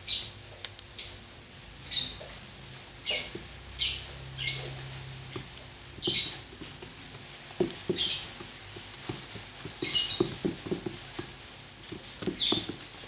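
A bird chirping again and again, short high calls every second or two. In the second half, a wooden stick stirs dish soap mixture in a plastic bucket with soft scraping and sloshing.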